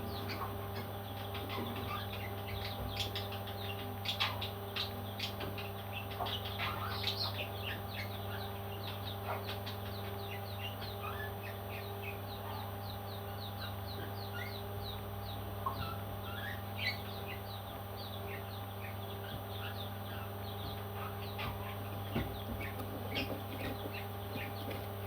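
Baby parrot chicks chirping, a rapid stream of many short high calls, over a steady low hum.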